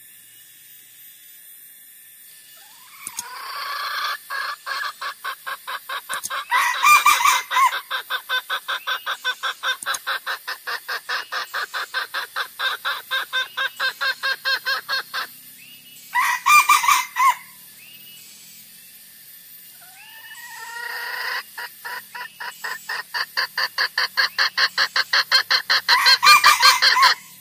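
Junglefowl lure call: rapid, evenly paced clucking at about four clucks a second in two long runs, broken by a few louder, longer calls.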